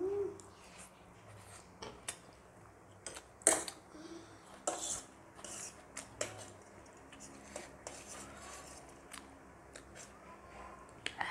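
Metal forks clinking and scraping on a steel serving tray as noodles are twirled and picked up, with scattered sharp clicks, the loudest about three and a half seconds in, and soft chewing and slurping sounds of noodle eating in between.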